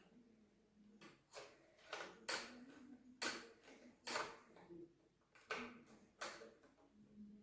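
Metal parts and tools of a chainsaw being handled during assembly: about seven sharp clicks and light metallic knocks, unevenly spaced.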